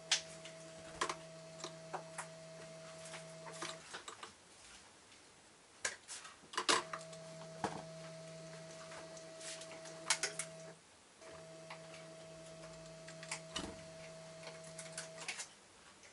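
Irregular sharp clicks and taps on a handmade plastic bird feeder as a varied tit visits it, over a steady low hum that cuts out and restarts every few seconds.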